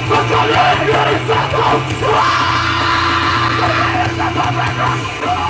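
Live grindcore band playing: heavily distorted guitars, bass and drums under yelled, screamed vocals, with one note held for about two seconds in the middle.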